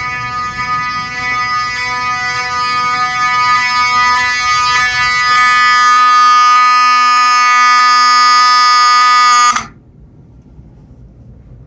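Wheelock 7002T 12-volt fire alarm horn strobe sounding a continuous buzzing horn tone. It grows louder over the first several seconds, then cuts off sharply about nine and a half seconds in.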